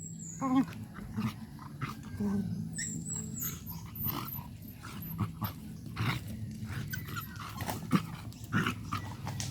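Dogs play-fighting: short growls amid scuffling and scattered clicks.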